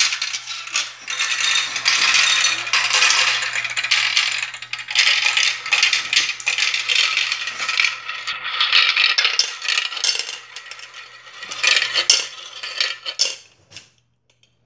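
Six glass marbles rolling and clattering down a plastic marble run: a dense rattle of many sharp clicks as they run through the tracks, spirals and spinners. It dies away shortly before the end as the marbles come to rest in the catch tray.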